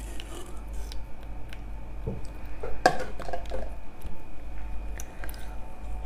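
Thin plastic water bottle crinkling and crackling as it is peeled off a frozen block of slush ice, with scattered small clicks and a louder cluster of sharp crackles about three seconds in.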